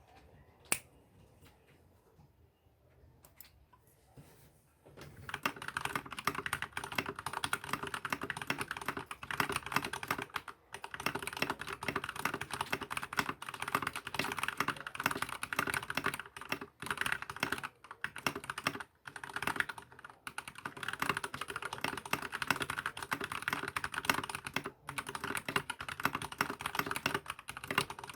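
Keychron K10 full-size mechanical keyboard with stock brown switches being typed on: a couple of single key presses, then from about five seconds in a fast, continuous clatter of keystrokes with only brief pauses.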